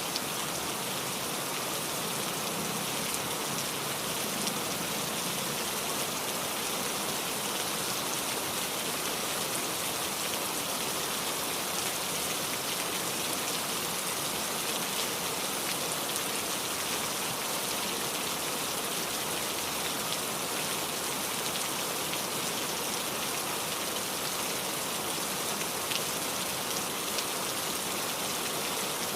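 Heavy rain falling steadily: an even hiss with fine drop ticks throughout, no thunder.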